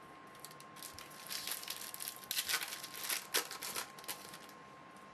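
Foil wrapper of a trading-card pack crinkling as it is handled and opened, in a run of crackly rustles from about a second in until about four seconds in, loudest around the middle.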